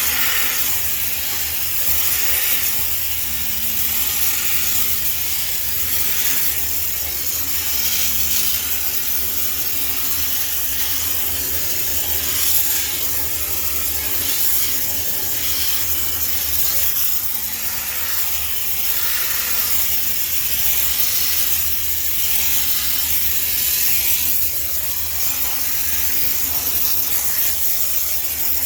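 High-pressure steam cleaner jetting steam with a steady loud hiss that swells and dips as the jet moves, over a low steady hum.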